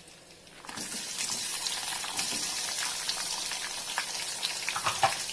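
Onions dropped into hot oil with cumin seeds and spices, frying: a sizzle that starts suddenly just under a second in and holds steady, with small crackles through it.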